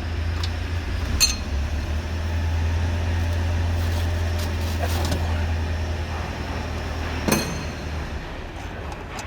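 UMZ-4216 engine being turned over on the starter with its pushrods removed, so it cannot fire; it is spun only to pump oil up to the rocker shaft. It makes a steady low drone that stops about eight seconds in. Two sharp metallic clinks come about a second in and near the end.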